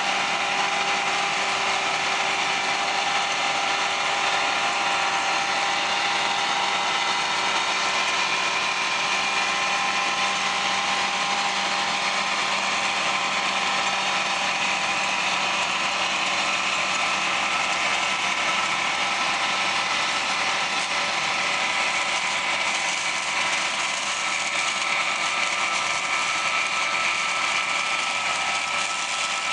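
Combine harvester running steadily while cutting soybeans: a constant mechanical drone with several steady whining tones from its engine and threshing machinery.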